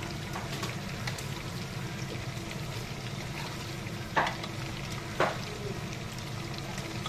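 Giant freshwater prawns in a thick sauce sizzling and frying in a wok over a gas flame while a wooden spatula stirs them. Two short sharp knocks come about a second apart a little past halfway.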